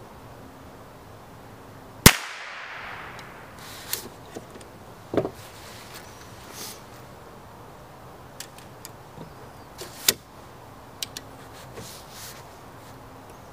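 Chiappa Little Badger TDX single-shot .22 LR rifle firing once about two seconds in: a sharp crack with a short ring after it. It is followed by light metallic clicks and a knock as the break-open action is opened and a fresh round loaded, then a second, quieter sharp crack near ten seconds in.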